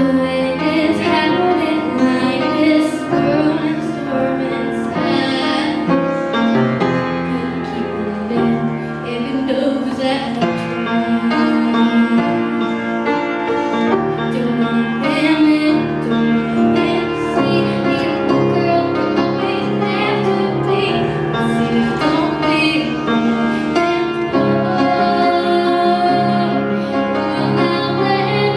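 A young girl singing into a microphone, accompanied on an upright piano.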